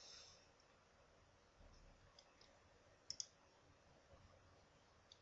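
Near silence broken by computer mouse clicks: a quick double click about three seconds in, with a few fainter clicks a little before it.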